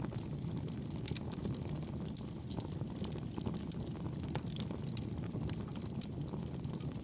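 Wood fire crackling in a fireplace: a steady low rumble of flames with many irregular sharp crackles and pops.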